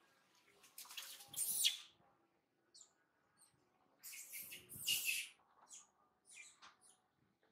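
Long-tailed macaques squealing: two shrill bursts of about a second each, one near the start and one about four seconds in, with short high chirps between and after them.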